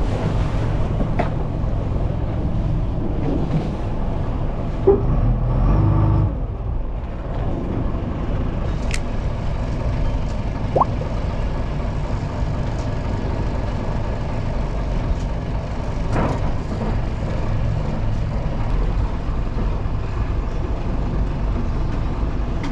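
Fishing boat's engine running with a steady low drone, a little louder for a second or so about five seconds in.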